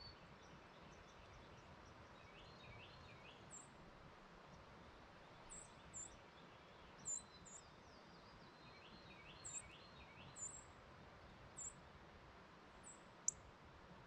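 Short, sharp, high bird calls, each dropping quickly in pitch, repeated irregularly about ten times, over fainter birdsong in the background.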